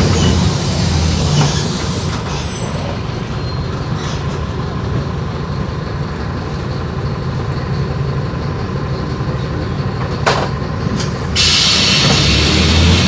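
Bus on a Mercedes-Benz OF-1418 chassis running, a steady diesel rumble that eases off after the first couple of seconds. A sharp click comes a little after ten seconds, and a sudden loud hiss starts about a second later.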